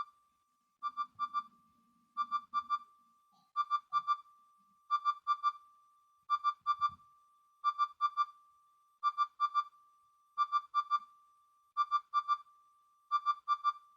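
Built-in ringtone of a Tevion/Medion MP2410 mobile phone (a Philips S220 rebrand) playing through its loudspeaker: short clusters of quick, high electronic beeps repeating about every second and a half, with a faint steady tone held between them.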